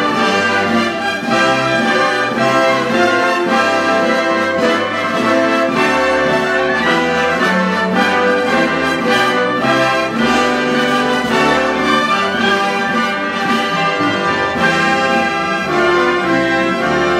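Live orchestra playing sustained chords, with the brass to the fore.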